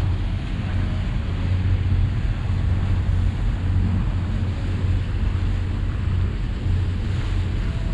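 Wind buffeting the microphone on the deck of a motor boat under way, over a steady low engine hum and the rush of water from the wake.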